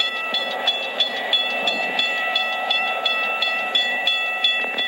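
Railroad grade-crossing bell ringing steadily at about three strokes a second, over the rumble of a passing Frisco freight train.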